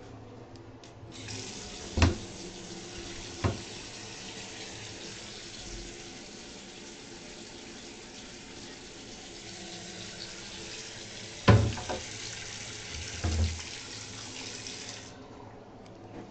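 Bathroom sink faucet turned on and left running, a steady rush of water that cuts off about a second before the end. Four sharp knocks stand out over it, two near the start and two near the end.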